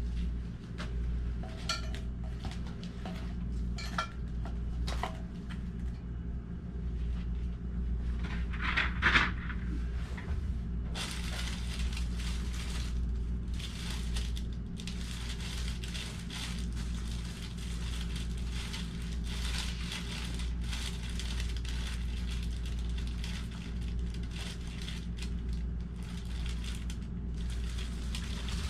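Crinkling, rustling handling noise with scattered clicks and one sharper crack about nine seconds in, over a steady low hum.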